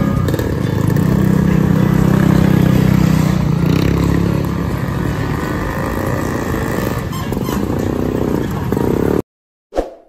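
Street traffic with a motorcycle engine running close by, loudest in the first few seconds. The sound cuts off abruptly near the end, and a short chime sounds just after.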